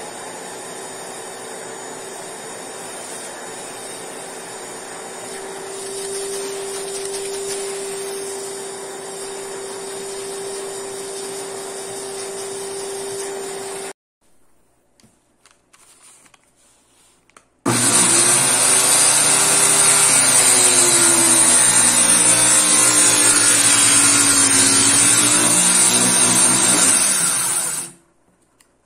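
Shop vacuum drawing sawdust up through a corrugated hose, a steady rush with a hum. About halfway through it gives way to a few seconds of near quiet, then a table saw comes in much louder, its pitch sagging for a while as a small hardwood block is fed through the blade, and cuts off sharply near the end.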